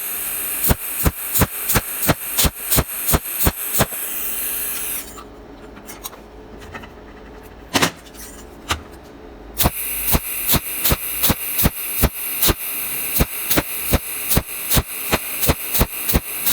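Welding arc hissing steadily with sharp, evenly spaced crackles about three a second. It stops for about four seconds midway, leaving only a couple of isolated clicks, then starts again.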